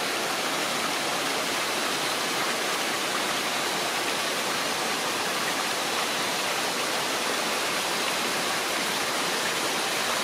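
Steady rushing of a forest stream, an even hiss that never changes, with a faint steady high tone above it.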